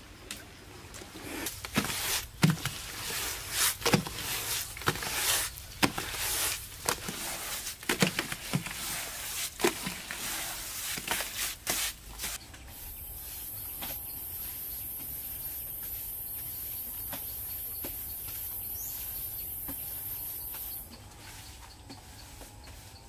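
Irregular scrapes, slaps and knocks of bare hands working wet mud plaster. About twelve seconds in they give way to a steady, high-pitched insect drone that lasts about eight seconds and then cuts off.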